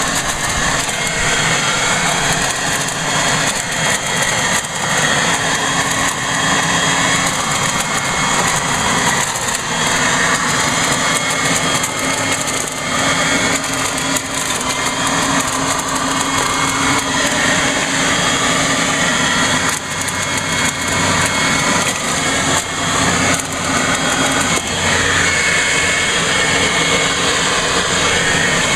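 Electric Toro Super Blower/Vac running steadily in vacuum mode, sucking up leaves that its impeller shreds into mulch. There are a steady hum and whistle under rough rushing noise, and the level dips briefly a few times.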